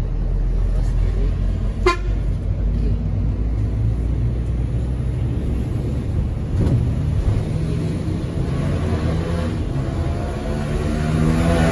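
Mercedes-Benz O500 RS 1836 bus underway, a steady low engine and road rumble. A brief sharp sound comes about two seconds in, and a vehicle horn sounds near the end.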